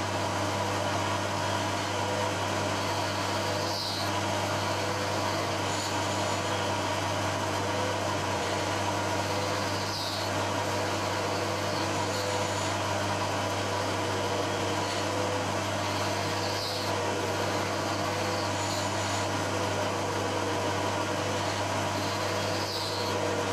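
Milling machine running steadily with a low hum while grooves are cut one by one around a small steel thimble held in a dividing head. A brief higher-pitched sound recurs about every six seconds, as each groove is cut.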